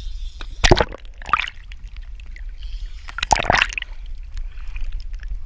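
Water splashing and sloshing: a loud splash about a second in, a smaller one just after, and another loud one about three seconds in, over a steady low rumble.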